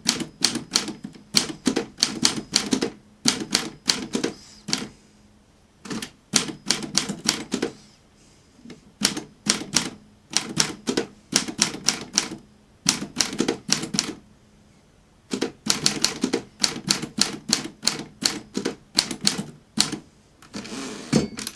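Keys of an Imperial 70 manual typewriter being struck one at a time by a one-finger typist: irregular runs of sharp clacks, a few a second, broken by short pauses.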